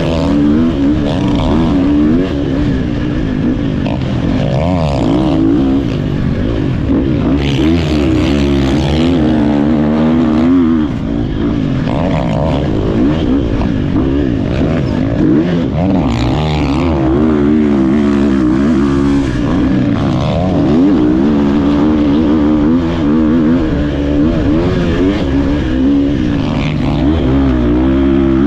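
Husqvarna FC350 four-stroke single-cylinder motocross engine heard close from the rider's helmet, its revs constantly rising and falling as the throttle is opened and chopped. Short bursts of rushing noise come in a couple of times.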